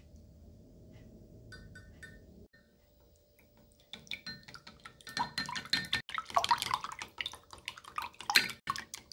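Wooden chopsticks beating eggs and milk in a glass measuring jug: rapid clicking of the sticks against the glass with liquid splashing, starting about four seconds in and growing louder. A few light taps come before it.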